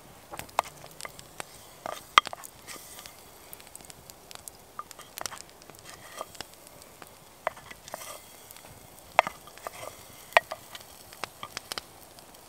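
Wooden spoon knocking and scraping against a small black pot and a wooden bowl as stew is ladled out, giving irregular sharp clicks, with a campfire crackling beside it.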